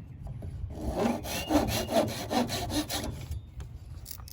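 A saw cutting through a dried horseweed stalk with quick back-and-forth strokes, about four a second, starting just under a second in and stopping after about two and a half seconds. The cut trims a bent end off a hand-drill spindle.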